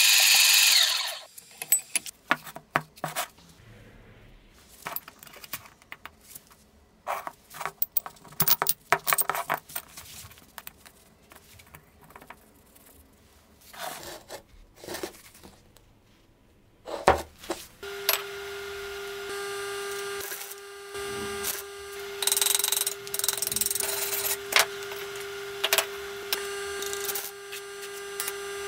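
Metal workshop sounds: scattered clicks and knocks of tools and steel parts being handled, then about two-thirds of the way through a power tool starts and runs with a steady whine, with rougher cutting noise coming and going over it.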